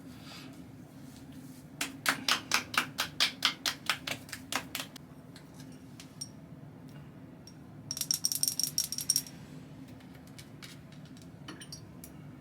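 A quick, even run of about a dozen taps, about four a second, then about a second in length of rapid rattling clicks near the end.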